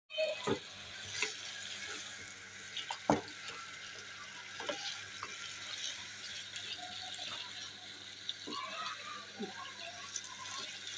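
Sliced potatoes and onion masala sizzling steadily in oil in a metal kadhai while being stirred with a spatula. The spatula knocks against the pan a few times.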